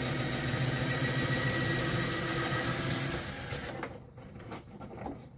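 Power drill running steadily, backing out one of the overly long screws that hold the hood scoop. It stops about three and a half seconds in, followed by a few light clicks.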